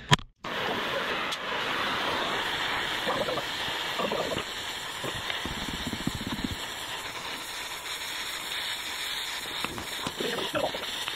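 Gas torch flame hissing steadily as it heats a bent steel slide so it can be straightened.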